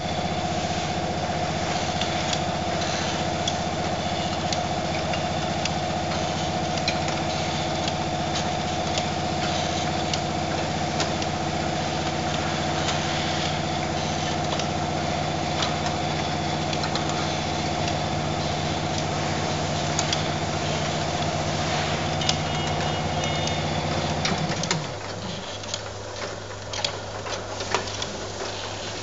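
Automatic inspection line for aerosol cans running: a steady motor hum with many small clicks as the cans knock against each other along the conveyor and in the rotary star wheel. About 24 seconds in the hum cuts out, leaving lighter clatter and a lower hum.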